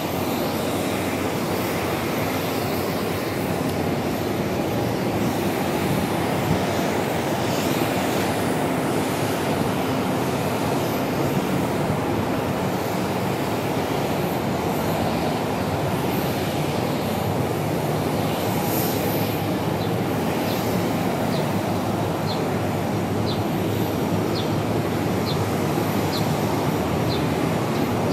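Steady loud rumble and hiss of aircraft engines running on an airport apron. Over the last several seconds a run of short high ticks repeats a little faster than once a second.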